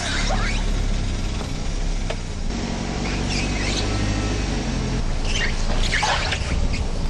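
Car tyre rubbing against a kerb, giving short high squeaks several times over the steady low hum of the car.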